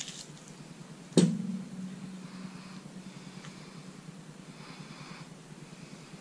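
A single sharp knock on the work table about a second in, followed by a brief low ring. After it comes faint rustling as gloved hands take hold of the wet poured canvas and tilt it.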